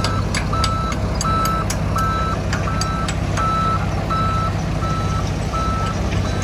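Heavy diesel machinery running steadily, with a reversing alarm beeping about once every 0.7 seconds and scattered sharp metallic clicks.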